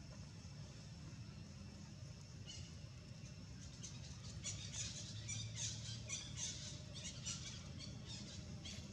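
A run of short, high-pitched squeaking calls, many in quick succession, starting about two and a half seconds in, over a steady low hum.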